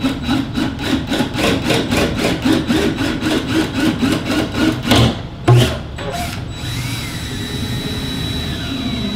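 Power drill turning a long flex bit through a wooden 2x4 stud: the screw tip chews into the wood in a fast, even rhythm of strokes. Two knocks follow about five seconds in, and after them the drill runs steadily with a high whine.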